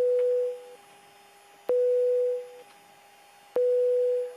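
A single-pitch electronic beep, each starting with a click and fading out within a second, repeating three times about every two seconds like a busy signal, over a faint steady hum.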